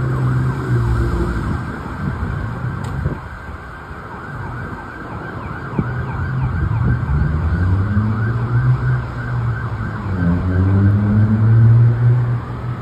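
Fire engine's warning devices: an electronic siren yelping rapidly throughout, and a deep, heavy air horn sounding in long blasts, near the start, midway and again toward the end. Near the end a Federal Q mechanical siren begins to wind up, rising slowly in pitch.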